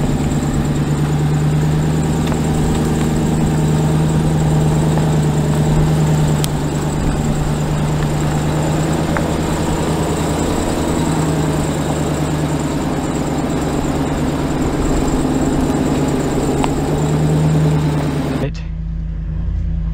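2022 Ram TRX's supercharged V8 and drivetrain running steadily at a crawl under its low-speed crawl control, heard from inside the cab as a low drone. A broad rushing noise rides over it and cuts off suddenly about a second and a half before the end.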